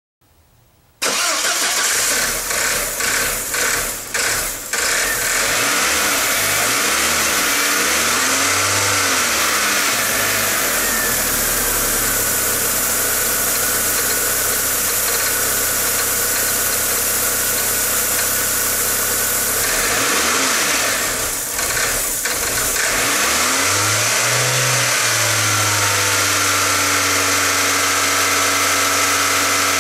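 1999 VW Passat's 1.8-litre turbocharged four-cylinder engine starting about a second in and running, its revs rising and falling several times. It runs rough, a fault that cleaning the mass airflow sensor has not cured and that later turns out to be the sensor itself.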